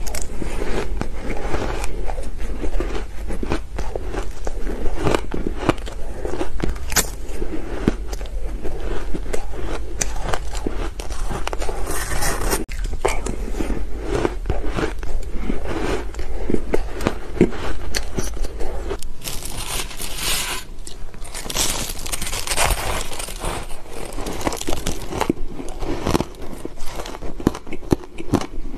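Close-miked bites of soft, powdery ice off a metal spoon: dense, continuous crunching with squeaky crumbling as the ice is bitten and chewed.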